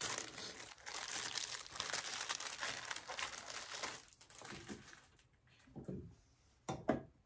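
Plastic zip bag crinkling as a paintbrush is slipped into it and the bag is handled, for about four seconds. Then faint rustling, and a brief sharp sound near the end.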